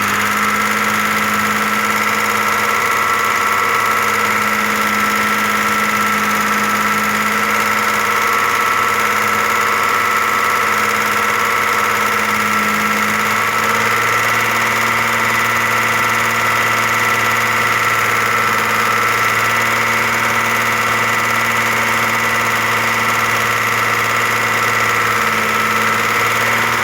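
Audi A6 engine idling steadily, its note shifting slightly about halfway through. It is being run for hydraulic valve lifter knock, and the knock is fading away gradually.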